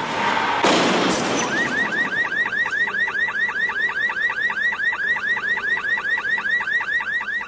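Electronic alarm warbling: a fast, even run of rising-and-falling chirps, about four or five a second, after a brief rush of noise at the start.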